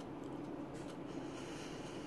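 Quiet room tone: a steady low hum with a few faint, soft clicks.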